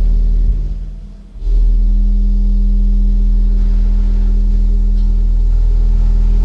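Subwoofer playing a 40 Hz pure test tone driven into distortion: a loud, steady low hum with a buzzy edge of added overtones, the saturated sound of the tone clipping. It fades away about half a second in and comes back at full strength about a second and a half in.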